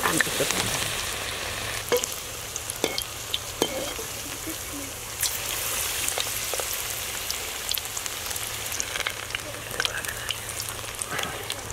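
Semolina vadas deep-frying in hot oil: a steady sizzle with scattered pops and crackles, a little louder in the first second.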